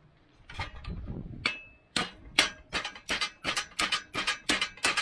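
Hammer striking steel parts of a John Deere 33 hay elevator: a couple of scattered clanks, then quick ringing metal taps at about four a second from about two seconds in, driving a tight-fitting piece into place.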